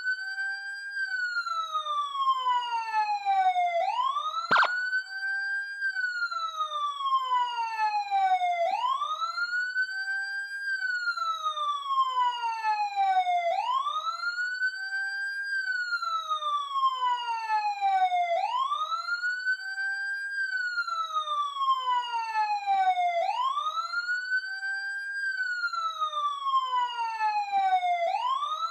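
Police siren wailing. Each cycle sweeps quickly up in pitch, holds briefly, then falls slowly, repeating about every five seconds. One sharp click about four and a half seconds in.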